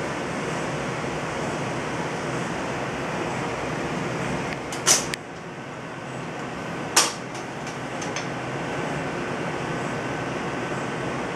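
Steady rushing room noise, with two sharp clicks about five and seven seconds in and a few fainter ticks just after the second. The rushing dips a little after the first click and builds back over the next few seconds.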